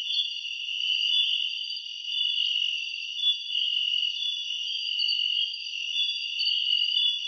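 Night-time chorus of crickets and other insects: several high, steady layers of shrill calling with a slight pulsing shimmer.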